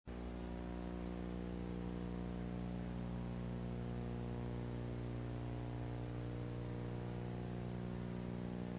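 Steady electrical mains hum, a low buzz made of many evenly stacked tones, over a constant hiss. It neither changes nor stops.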